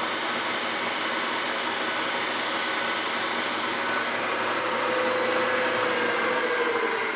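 Milling machine spindle running as a number 8 drill bit bores through cast aluminium, a steady mechanical noise. A whine comes in about two-thirds through and sags slightly in pitch, and the sound cuts off right at the end as the spindle stops.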